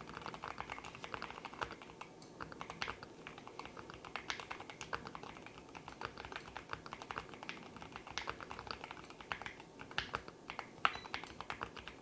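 Touch-typing on a Keychron Q6 HE keyboard with magnetic Hall-effect linear switches: a quick, uneven run of soft keystroke clacks, several a second.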